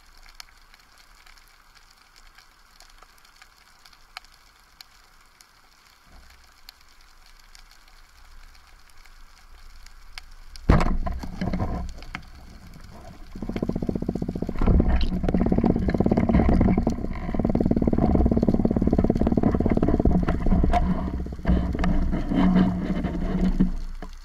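Underwater speargun shot: a single sharp crack about eleven seconds in, followed after a short pause by about ten seconds of loud, rumbling water noise against the camera as the diver works the speared fish and rises.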